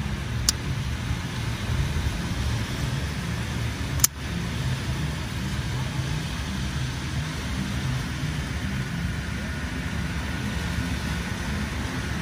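Steady low rumble of wind on the microphone and breaking surf. Two sharp clicks cut through it: one about half a second in, and a louder one about four seconds in.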